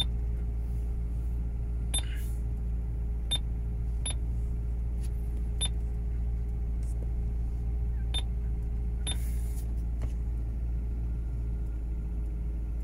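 Maserati GranTurismo's V8 idling, heard inside the cabin as a steady low hum. Over it come about six short, high-pitched clicks, the touchscreen key tones of an Android head unit as its screen is tapped.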